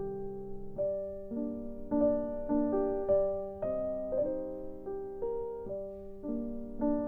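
Slow, calm piano music, with a new note or chord struck about twice a second.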